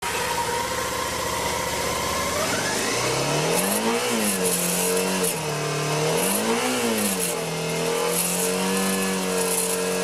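2013 Suzuki V-Strom 650's 645 cc V-twin engine running, revved up and back down twice, then held at a steady raised speed. During the revs a high tinging rattle comes in, typical of the loose spacer in the crash-bar joint that rattles at higher rpm.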